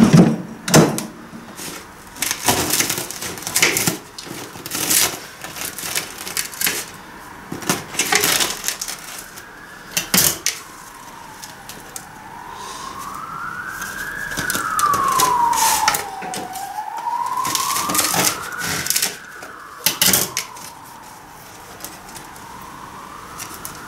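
Knife and hands cutting and tearing a crusty baked pide on a plate, in a string of sharp clicks, knocks and crust crackles. From about halfway through, an emergency-vehicle siren wails slowly up and down, rising and falling about twice.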